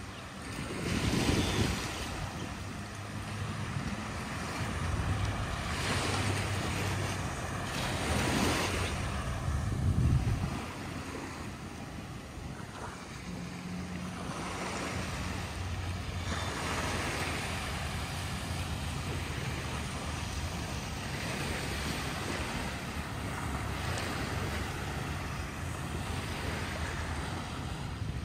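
Sea waves washing onto a sandy beach, swelling and fading every few seconds, with wind buffeting the microphone.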